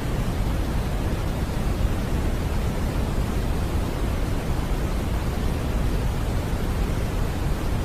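Continuous generated white noise: an even, unchanging rush with no tones or breaks, weighted toward the deep end.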